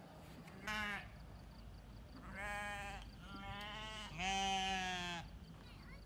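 Sheep bleating: one short bleat, then three longer bleats in quick succession, the last the loudest.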